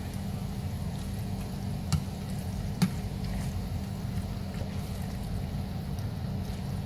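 Spoon stirring thick chili mac in a plastic microwave pressure cooker, with two short sharp knocks of the spoon against the pot about two and three seconds in, over a steady low hum.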